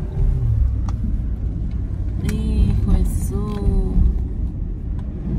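Car's road noise heard from inside the cabin: a steady low rumble of tyres running over a flooded, wet road.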